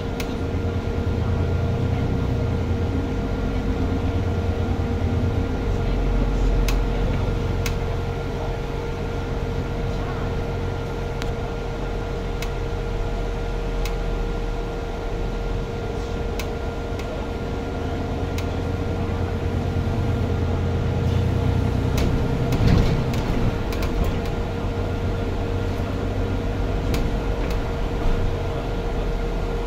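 Cabin noise of a MAN Lion's City 12 EfficientHybrid city bus under way: a low rumble from its 9-litre diesel drivetrain that swells and eases, over a steady hum. Small clicks and rattles from the fittings run through it, with a louder knock about two-thirds of the way in.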